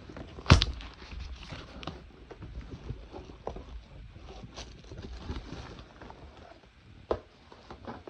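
Handling noises from unpacking a boxed humidifier: a sharp knock about half a second in, another near the end, and scattered clicks, scrapes and rustling between them.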